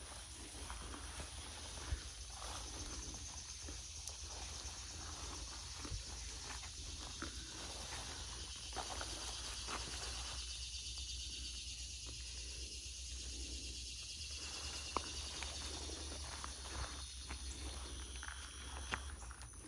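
Footsteps on grass and sandy ground, pausing for a few seconds about halfway, over a steady high-pitched drone of insects.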